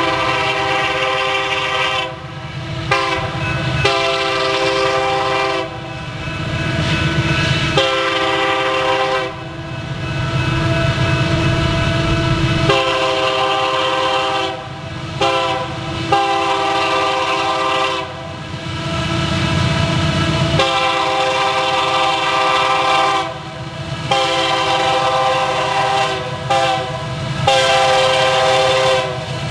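Air horn of a BNSF SD70MACe diesel locomotive, sounded again and again in long blasts with a few short ones. A low rumble from the approaching locomotives comes through between the blasts.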